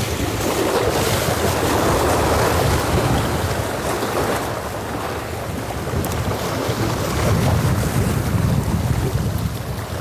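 Wind buffeting the microphone with waves washing against a seawall: a loud, continuous rushing with a gusting low rumble and no distinct events.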